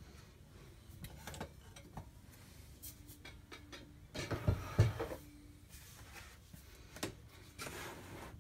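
Handling noise: scattered taps and knocks of things being moved and set down close to the microphone while the camera is adjusted, with a louder short clatter about halfway through.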